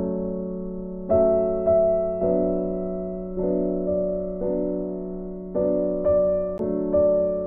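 Background music: soft, slow piano-like keyboard chords, a new chord struck about once a second and fading away, over a steady low held note.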